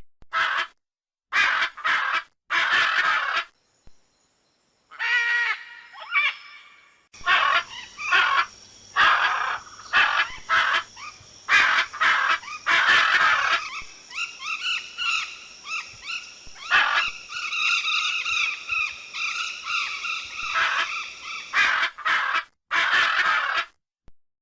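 Macaws calling: a run of loud, harsh squawks and screeches, some short and clipped, some drawn out into longer rasping calls. From about seven seconds in, a steady high hiss runs behind the calls.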